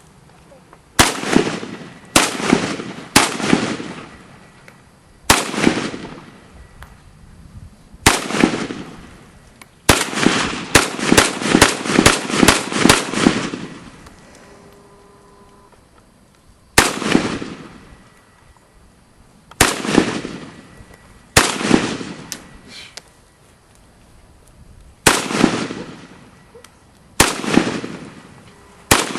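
Semi-automatic rifle fire. Single shots come a second or more apart, with a fast string of about ten shots, roughly three a second, in between. Each crack is followed by a short echoing tail.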